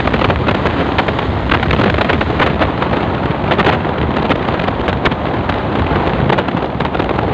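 Loud wind buffeting the microphone of a motorcycle riding at speed, with the bike's engine and road noise underneath.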